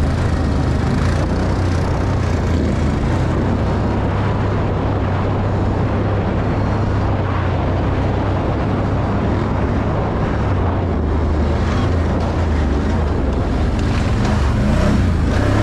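Can-Am Outlander 1000 ATV's V-twin engine running steadily under way, with wind rushing over the microphone.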